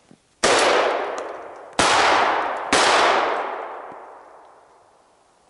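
Three shotgun shots at a hare, the second about 1.3 s after the first and the third about a second after that. Each is loud and echoes through the forest, dying away over a second or two.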